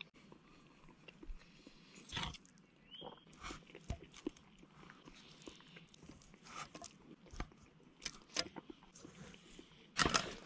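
A person chewing and eating, with scattered clicks and scrapes of a plastic fork against a metal skillet, a little louder near the end.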